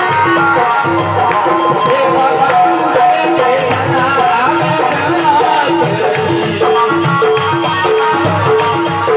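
Instrumental passage of live devotional bhajan music: a melody over a steady drum beat with jingling percussion.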